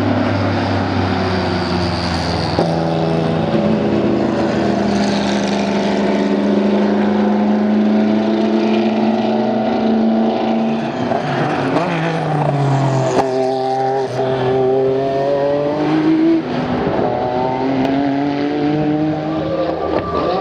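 Porsche 962 Group C race car's turbocharged flat-six engine running hard. Its note holds fairly steady at first, drops a little past halfway, then rises and falls again.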